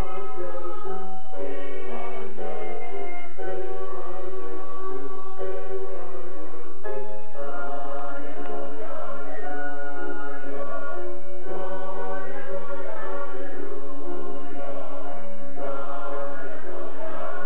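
A vocal group singing a Christian song in harmony over electronic keyboard chords; the texture grows fuller about seven seconds in.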